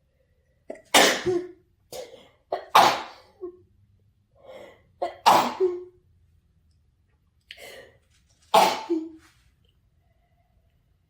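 A person sneezing four times in a row, two to three seconds apart, with short gasps and breaths between the sneezes. The sneezes are set off by a nasal swab test.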